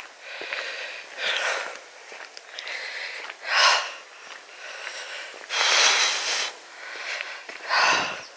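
A walker breathing hard close to the microphone after climbing a lane: four loud breaths with quieter gaps between, the longest a little past the middle.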